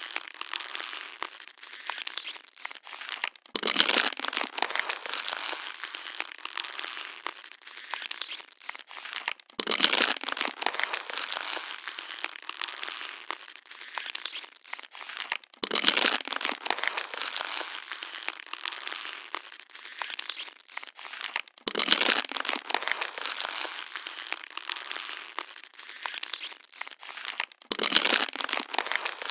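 Plastic water bottle being crushed and crinkled: continuous crackling, with a louder crunch about every six seconds.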